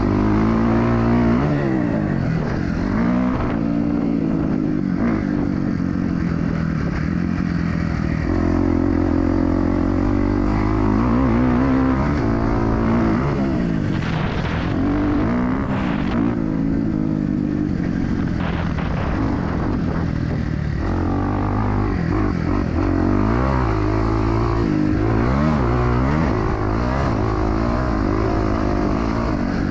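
Dirt bike engine racing around a motocross track, its pitch climbing and dropping again and again as the rider opens the throttle, shifts and rolls off. A few sharp knocks come about halfway through.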